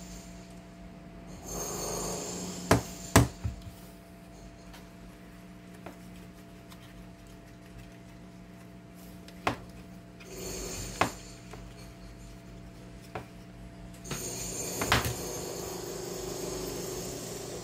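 One-transistor regenerative radio receiver being tuned: a steady low hum from its speaker, with stretches of hissing static that swell and fade a couple of seconds in, around the middle and near the end. Several sharp clicks come as the front-panel knobs are handled.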